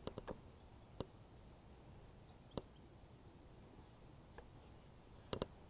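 Footsteps through dry undergrowth: a few sparse, sharp crackles of twigs and leaves snapping over a quiet hiss, a pair of them close together near the end.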